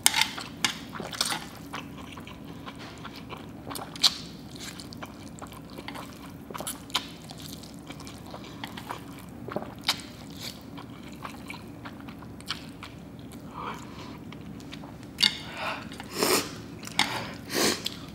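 A person eating saucy instant stir-fried noodles fast, close to the microphone: wet slurping and chewing with scattered sharp mouth clicks, and a few louder mouth sounds bunched near the end.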